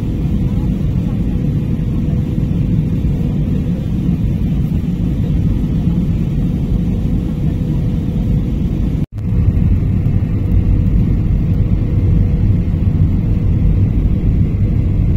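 Steady low rumble of a passenger airliner in flight heard inside the cabin, engine and airflow noise with a faint steady hum. The sound drops out for an instant about nine seconds in and comes back a little louder.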